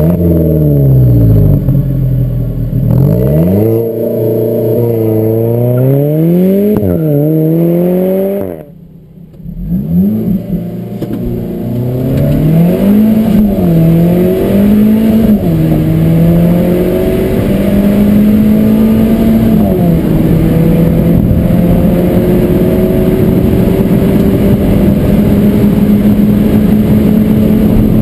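Alfa Romeo 4C's turbocharged 1.75-litre four-cylinder engine revving up and down several times. After a short break about nine seconds in, it accelerates hard through the gears, its pitch climbing and dropping back at each upshift.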